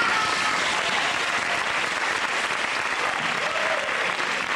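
Audience applause breaking out all at once and going on steadily.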